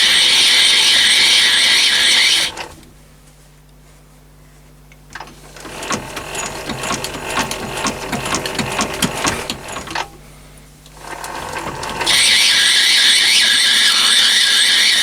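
Lathe screw-cutting an internal thread under power feed: the threading tool cuts with a loud hissing for about two and a half seconds, then goes quiet as it runs clear into the undercut. Next comes about five seconds of lighter clattering from the running gear train with the tool backed off, and from about twelve seconds in a second loud cutting pass, all over a steady motor hum.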